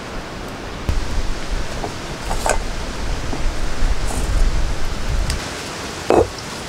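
Jackfruit seeds being dry-roasted in a clay pot and stirred with a wooden spatula: a rattling, scraping hiss that grows louder from about a second in until about five seconds in, with a sharp click midway and a short louder knock near the end.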